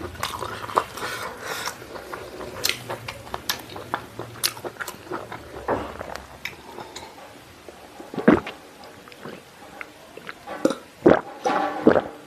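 Close-miked chewing and wet mouth clicks of a man eating pork stomach and intestine, with a few louder sharp clicks and knocks in the second half as he drinks from a plastic water bottle.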